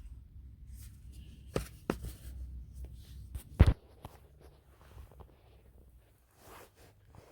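Hands handling unboxing packaging: soft rustling with a few sharp clicks and knocks, the loudest about three and a half seconds in.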